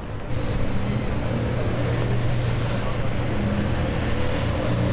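City street traffic: a motor vehicle's engine running steadily with a low hum over a haze of road noise, jumping louder shortly after the start.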